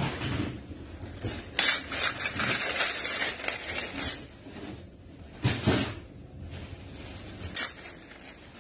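Stainless steel spoons, forks and ladles clinking and clattering against each other while hands rummage through a plastic bag full of them, the bag crinkling. The noise comes in uneven bursts, the longest lasting about two seconds near the start.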